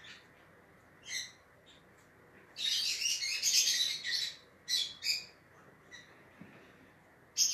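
A bird chirping in short, high-pitched calls, with a denser run of twittering lasting about a second and a half around three seconds in.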